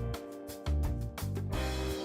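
Background music with a pulsing bass line and a steady beat.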